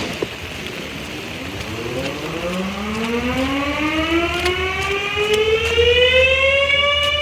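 Steam whistle blowing. It comes in about two seconds in, its pitch slides upward for several seconds, then it settles on a steady, loud tone, over a low machinery hum.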